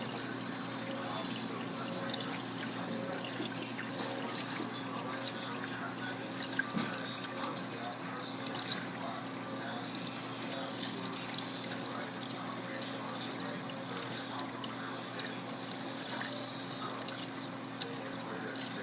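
Aquarium water sloshing and trickling at the surface of a reef tank churned by two Jebo WP40 wave pumps running at 24 V, over a steady low hum.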